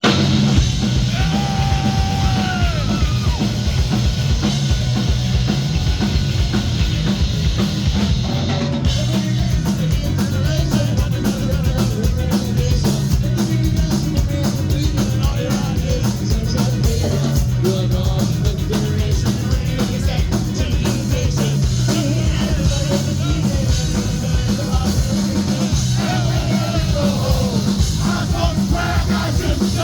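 Punk rock band playing a song live at full volume, with a drum kit and a singer over the band.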